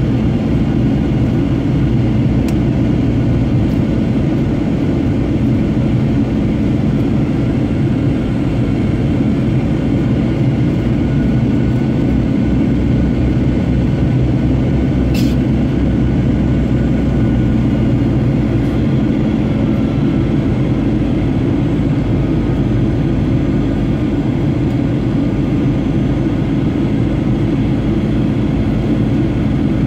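Steady cabin drone of a Boeing 737-800 on approach, heard over the wing: the CFM56-7B turbofan engines and rushing air, a deep rumble with faint whining tones above it. One brief click comes about halfway through.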